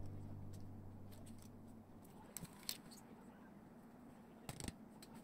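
The last notes of background music die away, followed by a few faint, light clicks and taps of a steel ruler and card being handled on a cutting mat, the clearest pair a little past halfway.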